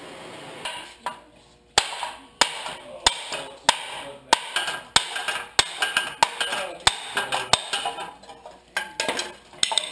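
Hand hammer striking a steel truck suspension control arm and steering knuckle, about one and a half blows a second, to knock the arm apart.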